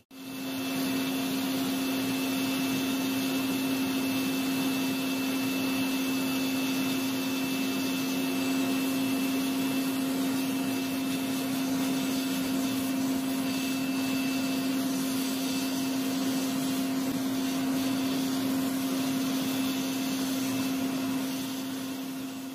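Electric air blower of a homemade gas forge running steadily: a constant motor hum over rushing air.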